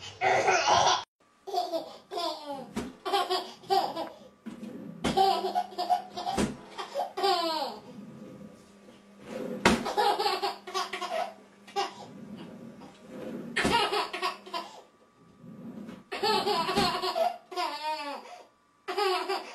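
Baby laughing in repeated bursts of belly laughs, each laugh falling in pitch, with a few sharp knocks between the bursts.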